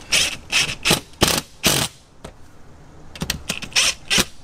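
Cordless driver running in short, sharp bursts as it drives exterior screws through a hose bib's mounting block into the siding. There is a short pause in the middle, then a few more bursts near the end as the screws seat.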